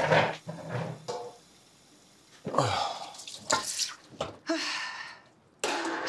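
Dishes being washed at a kitchen sink: water splashing and dripping, with a few knocks of a metal bowl and dishes.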